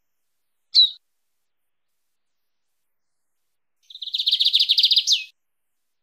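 Lined seedeater (bigodinho) singing its wild-type 'mateiro' song: a single short down-slurred note, then a few seconds later a rapid high trill of about a second, ending in a downward-sweeping note.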